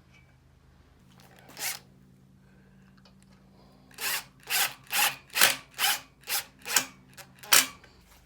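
Power drill driving screws in short trigger pulses: one brief run about a second and a half in, then a string of quick bursts, about two a second, in the second half.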